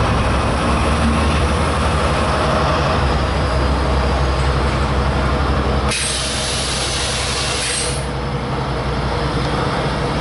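Freightliner Class 70 locomotive's 16-cylinder GE PowerHaul diesel engine running loudly with a steady low drone. About six seconds in, a sharp hiss of released air starts suddenly and lasts about two seconds.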